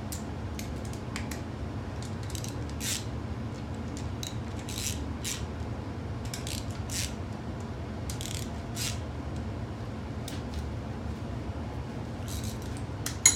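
Hand ratchet wrench clicking in short, irregular strokes as the small cylinder-head bolts of an LQ4 6.0 V8 are run down toward 25 ft-lb, with one sharp click near the end. A steady low hum runs underneath.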